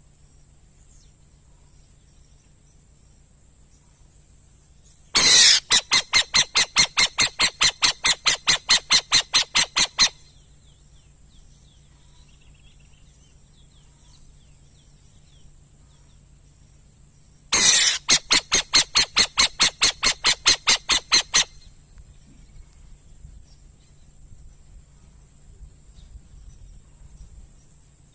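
An owl calling twice, each call a rapid run of evenly spaced harsh notes, about five a second. The first call lasts about five seconds and the second about four, with a faint steady high-pitched insect-like tone underneath.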